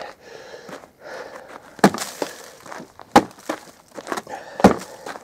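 A wooden pallet frozen to the ground being forced at without coming loose: three sharp wooden knocks about a second and a half apart, with smaller cracks and rustling between.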